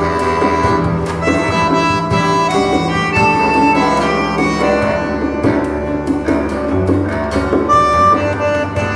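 Recorded music played back through a hi-fi demonstration system: percussion strikes under held melodic tones.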